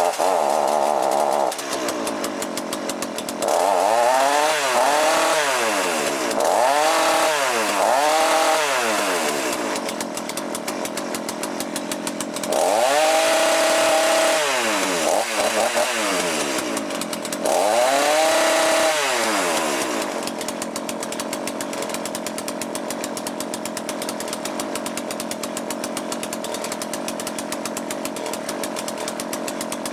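Small two-stroke chainsaw engine with a Walbro carburettor, revved up and back down several times and held at high revs twice, then settling into a steady idle for the last ten seconds. It is being tuned on the high-speed mixture screw, which had to be turned out a long way to richen it from a very lean setting.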